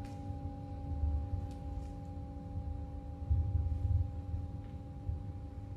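A steady drone of several sustained tones that hold unchanged throughout, over a low rumble that rises and falls.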